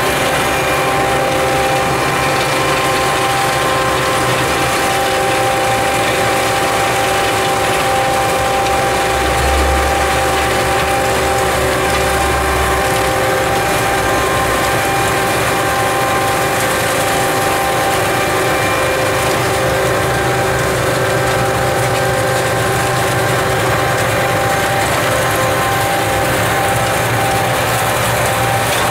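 Rhaetian Railway Xrotmt 95403 rotary snow blower working at full load, its rotor and machinery running with a steady whine over a constant rush of thrown snow. A deeper rumble swells for about three seconds near ten seconds in.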